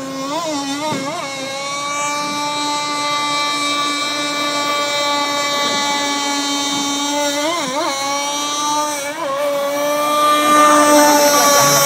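An RC speedboat's QD Pioneer 26 two-stroke gas engine running at speed with a steady high note, its pitch wavering briefly about a second in and again around eight seconds. It grows louder near the end as the boat passes close.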